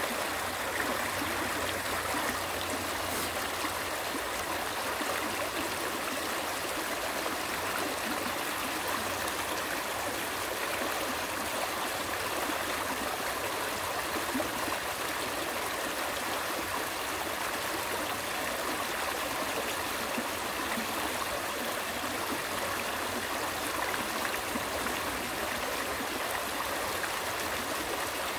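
Small mountain stream flowing over rocks, a steady babble and trickle of water.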